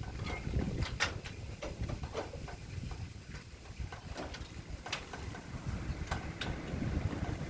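Wind buffeting the microphone in a low rumble, with scattered sharp clicks and taps at irregular intervals.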